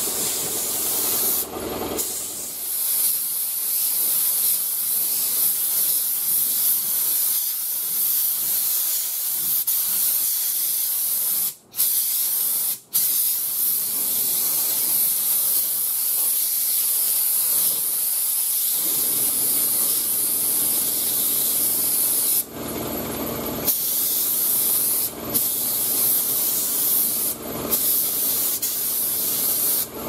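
Siphon-feed spray gun hissing steadily as compressed air sprays primer, cutting out twice for an instant near the middle and briefly a few more times later. A lower steady hum joins about two-thirds of the way in.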